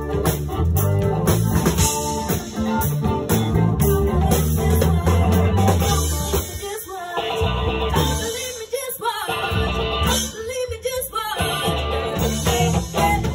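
Live band playing an upbeat pop-funk number with bass, drums and guitar, and a singer; twice around the middle the bass and drums drop out briefly while the singing carries on.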